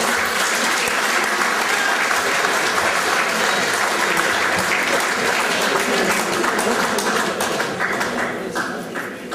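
Crowd applauding steadily, dying down near the end.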